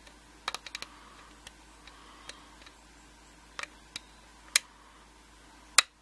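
Lock pick and tension wrench working an Evva DPS twin-sidebar euro cylinder: a run of small, sharp metallic clicks, a quick cluster of four about half a second in, then single clicks spaced out, the loudest one near the end.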